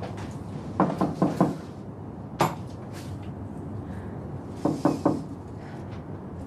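Knocking on a wooden bedroom door: two rounds of about four quick raps each, about a second in and again about five seconds in, with a single sharp tap in between.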